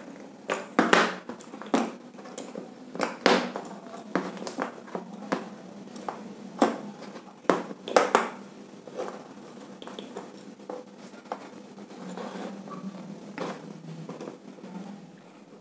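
Irregular sharp clicks and taps of a screwdriver and plastic switch and fan-regulator plates being handled and set down on a hard floor. They come thick in the first half and thin out later.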